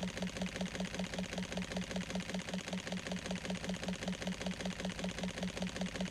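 Rapid, steady mechanical clatter at about six strokes a second. It starts and stops abruptly, as an edited-in clip would.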